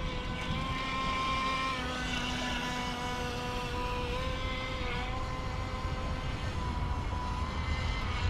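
Electric motor of an Alpharev R308 RC speedboat whining steadily as the boat runs on the water, its pitch dipping and shifting slightly a few times, over a low rumble.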